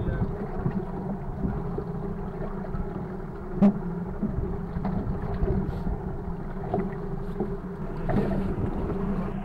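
Inshore lifeboat's outboard engine idling steadily, with wind buffeting the microphone. A single sharp knock comes nearly four seconds in.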